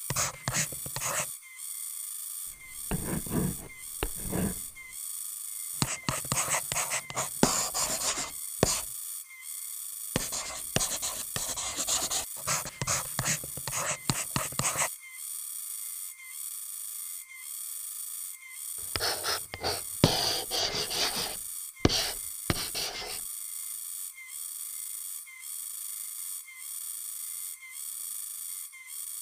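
Pen scratching and paper rustling in several irregular bursts as a map is drawn by hand. Behind it runs a steady chorus of crickets and other forest insects, with a regular repeating chirp.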